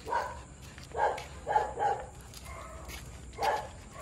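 Dog barking: five short barks, three close together in the first two seconds and one more near the end.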